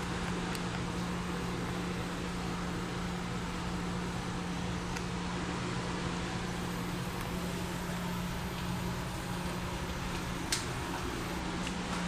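Steady hum of commercial kitchen machinery: a constant low tone under an even wash of fan-like noise. One sharp click about ten and a half seconds in.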